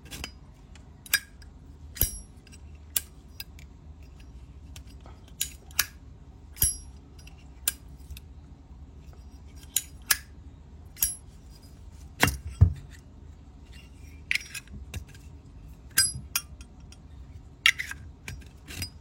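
Silver-plated Zippo lighter's hinged lid flicked open and snapped shut again and again, each stroke a sharp metallic click with a brief bell-like ring, at an irregular pace.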